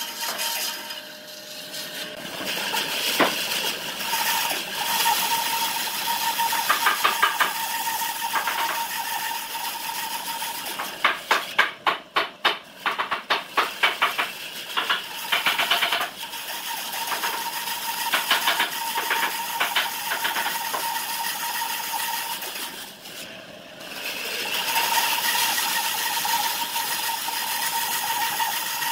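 Bandsaw running and cutting into a thick round log, a steady machine noise with a constant whine. About halfway through the sound pulses rapidly for a few seconds, and it drops briefly near the start and again about four-fifths of the way in.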